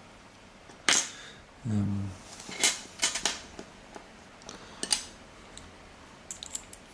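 Sharp metallic clicks and clinks of tools against a small pin tumbler lock as it is worked apart, about six separate strikes spread out, the loudest about a second in. A brief low hum just before two seconds in.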